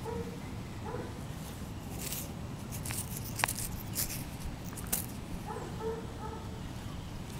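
Fingers working loose black dirt and handling a freshly dug eagle button right at the microphone: scratchy rustles and a few sharp clicks over a steady low outdoor rumble.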